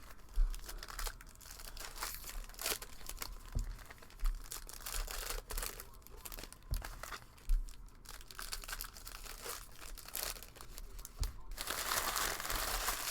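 Trading-card pack wrappers crinkling and tearing, with cards being handled: a run of short clicks and rustles, thickening into a longer crinkling stretch near the end.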